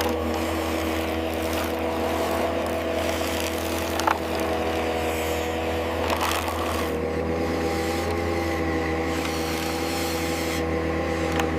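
Radio-controlled construction machine running with a steady electric-motor and hydraulic-pump whine, with scraping and crunching of soil and a few sharp clicks. The whine shifts pitch about seven seconds in.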